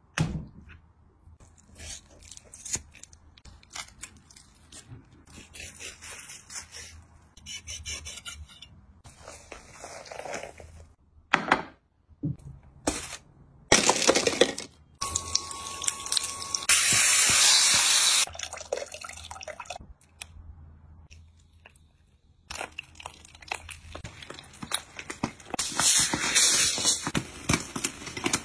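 A run of close-up food-preparation sounds: raw meat being handled, smooth stones clacking as they are dropped onto aluminium foil, and foil crinkling near the end. About midway there is a couple of seconds of steady hissing noise.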